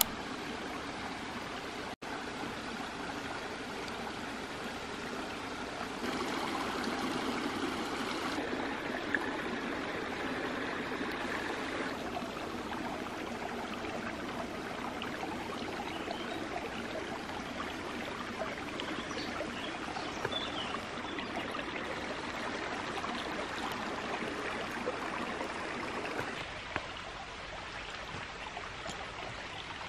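Small woodland stream running and trickling into a clear pool: a steady sound of moving water whose level shifts a few times.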